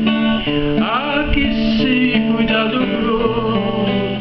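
Nylon-string classical guitar fingerpicked as song accompaniment, playing changing chords.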